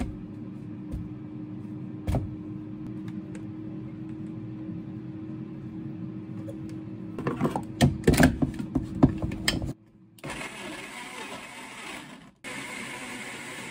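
A run of loud clatters and knocks as the blender jar is handled, then a Nexover countertop blender whirring steadily from about ten seconds in, blending milk, blueberries and banana into a smoothie.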